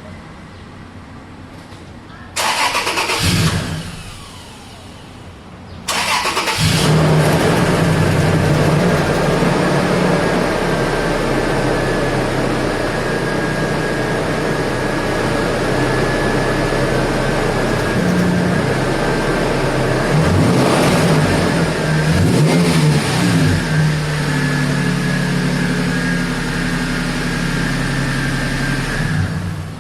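2005 Toyota Tacoma engine with freshly cleaned spark plugs, cranked briefly about two and a half seconds in, then started about six seconds in and left running, its speed wavering a little past the middle before it shuts off near the end.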